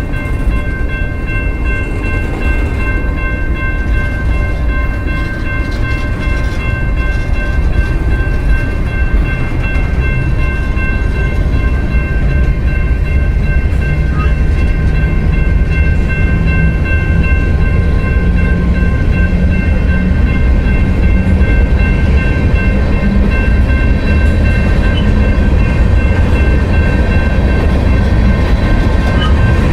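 A train running, with a heavy steady rumble and several constant high ringing tones held throughout. From about halfway through, a low hum slowly rises in pitch.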